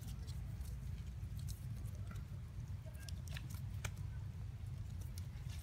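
Low steady rumble with scattered small sharp clicks and scratches at irregular intervals.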